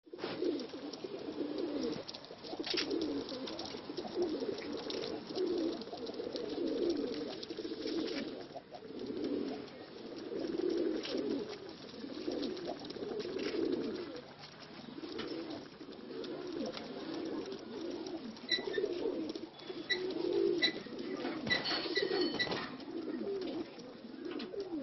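Several domestic pigeons cooing continuously, their low coos overlapping one after another. A few short high chirps join in for a few seconds near the end.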